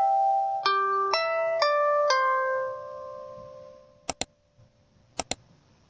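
A short tune of clear, bell-like plucked notes, about two a second, the last note ringing out and fading a little over three seconds in. Then two pairs of quick sharp clicks.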